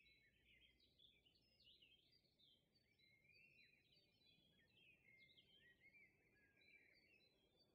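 Near silence: the sound is all but muted, with only very faint, scattered high chirping traces throughout.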